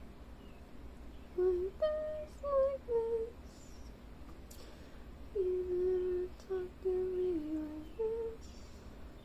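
A person humming a tune in two short phrases of held notes that step up and down in pitch, the second phrase ending lower, over a faint steady low hum.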